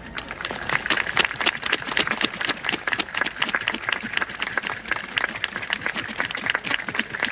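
Applause from a crowd and from players standing close by: many people clapping hands in a dense, steady patter that starts abruptly.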